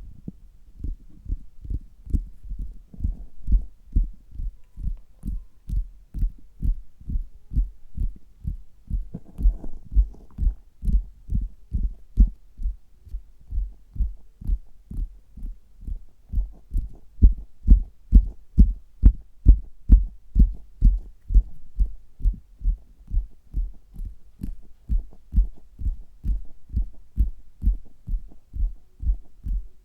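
Fingers tapping on a stomach, heard through a stethoscope: a steady run of low thumps, about three a second, getting louder about halfway through. A short rustle comes about nine seconds in.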